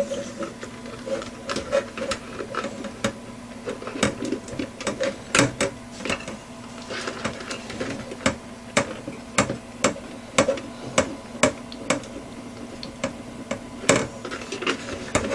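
Irregular clicks, taps and knocks of hard plastic and metal computer parts being handled and worked on, over a steady low hum.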